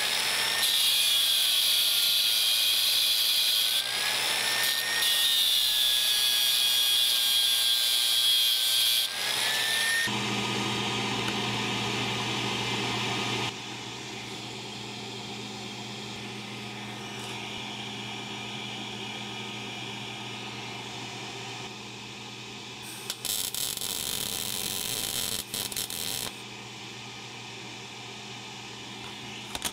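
Angle grinder with an abrasive disc grinding a piece of steel, its whine dipping and rising in pitch as it bears on the work. It stops about ten seconds in, leaving a quieter steady hum.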